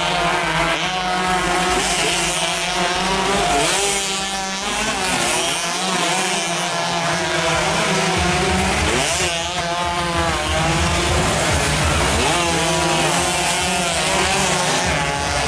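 Several underbone racing motorcycles at full throttle, overlapping. Their engine pitch climbs and falls again and again as they pass and shift gears.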